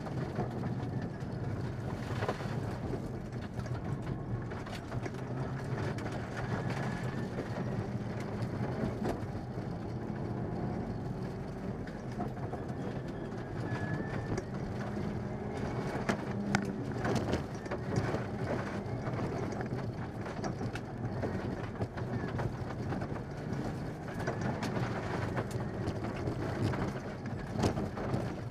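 Mitsubishi Lancer Evolution VI rally car at speed on gravel, heard from inside the cabin: the turbocharged four-cylinder engine running hard, its pitch rising and falling with the throttle and gears, with scattered knocks from stones striking the underside.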